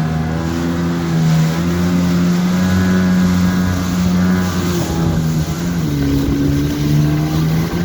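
Jet ski engine running at speed, a steady drone whose pitch dips about six seconds in, then holds.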